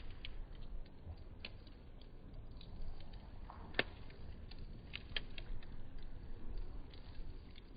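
Wood fire crackling: scattered sharp snaps and pops over a low steady rumble, the sharpest snap a little under four seconds in.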